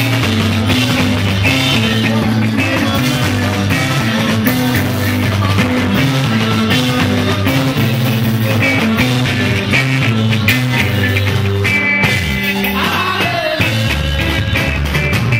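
Live band music: a drum kit with cymbals, electric guitars and a steady, pulsing bass line, with a singer's voice over it. The bass drops out briefly about twelve seconds in.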